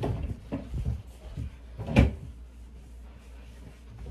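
Household knocks: a few soft bumps, then one sharp knock about two seconds in, of things being handled in a bedroom.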